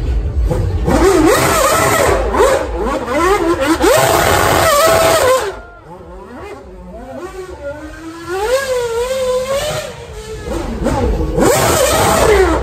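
Formula 1 car's engine revving hard, its pitch jumping up and down rapidly as the car is driven through burnouts and donuts. The sound drops away about five and a half seconds in and comes back loud near the end.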